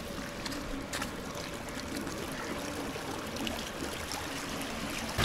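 Small waves lapping and washing over the stones of a shallow, rocky shoreline: a steady, low wash of water with a few faint clicks.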